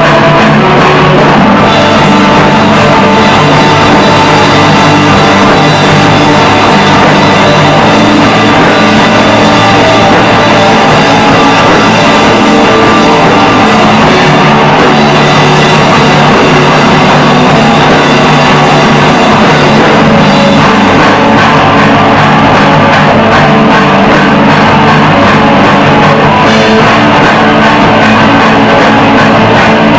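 Live rock music: a band playing electric guitar, electric bass and drum kit through amplifiers, loud and continuous, with steady drum hits throughout.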